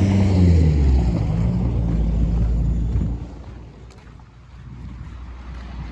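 A motor vehicle passing close by, its engine note dropping in pitch as it goes past, then fading away after about three seconds.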